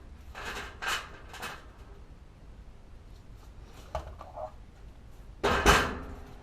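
Clatter and knocks of tools and parts being handled during plumbing work: a few short scrapes early on, light clicks, then one loud clatter about five and a half seconds in.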